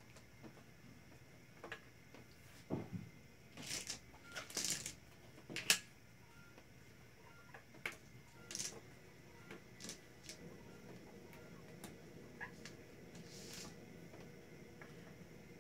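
Plastic interlocking building-block panels clicking and knocking as they are snapped together and set down on a wooden table. The clicks are scattered, with a denser clatter about four to six seconds in.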